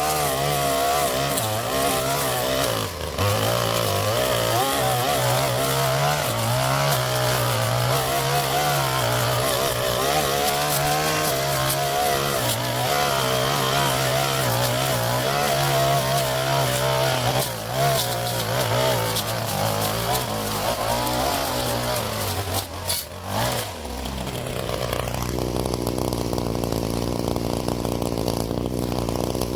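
Gas string trimmer (weed eater) engine running at working speed, its pitch wavering as the throttle is worked while cutting. About 24 seconds in it drops to a steadier, lower idle.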